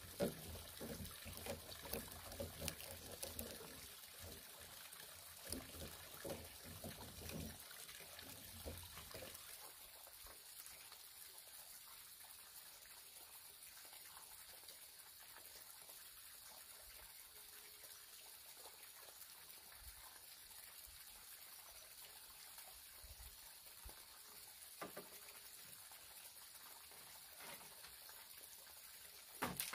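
Light knocks, scrapes and rustles of bamboo poles and strips being handled and lashed together, frequent in the first nine seconds. After that, near silence with a faint steady hiss and a few isolated clicks.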